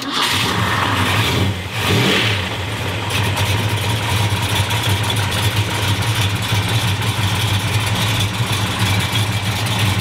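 A car engine starts and then runs steadily and loudly, with a short dip and rise in revs about two seconds in.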